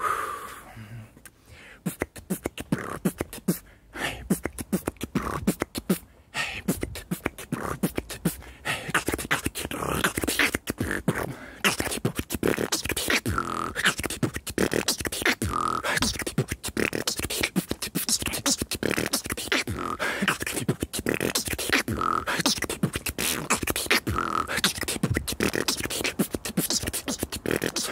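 A man beatboxing solo: rapid mouth percussion of clicks and hits, sparser for the first few seconds, then a fast, dense run from about six seconds in, with short pitched vocal tones mixed in.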